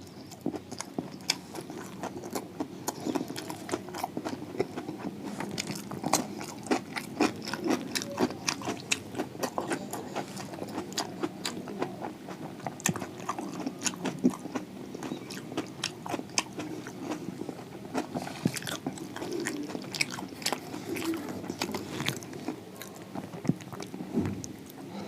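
Close-up eating: a person biting into and chewing crispy fried samosas, with many irregular crunching crackles of the pastry throughout.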